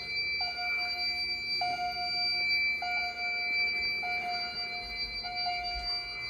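Fire alarm chime strobes sounding in alarm: a repeating electronic ding about every 1.2 seconds over a steady high-pitched tone.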